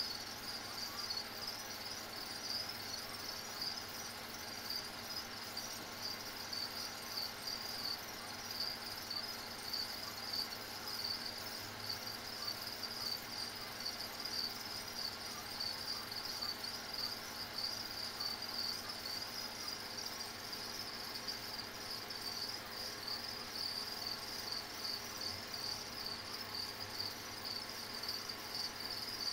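Crickets chirring steadily and continuously in a high pitch, a fast shimmering trill that never stops.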